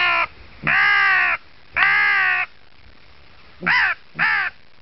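Hand-blown crow call sounding crow caws to call in carrion crows and jackdaws. Three long, drawn caws are followed by two short ones in quick succession.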